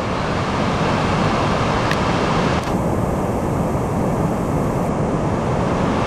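Glacier-fed river rushing over a waterfall: a steady, even noise of white water.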